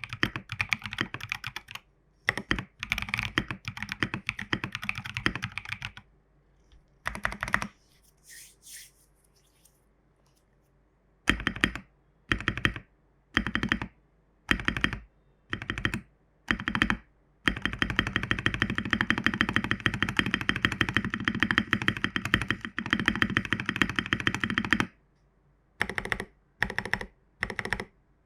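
Geonworks Frog WKL mechanical keyboard with MT3 keycaps: fast typing on Prevail Epsilon switches, then after a pause the stabilized keys on lubed Owlab stabilizers and Holy Panda switches pressed one at a time about once a second. Those single presses are followed by a rapid run of presses lasting several seconds, then single presses again.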